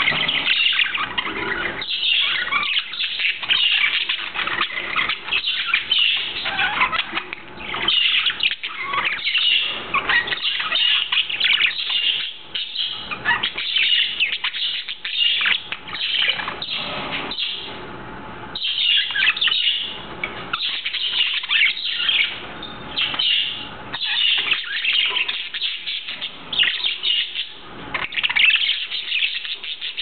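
Budgerigars chirping and chattering, a dense run of quick high chirps with a short lull a little past halfway.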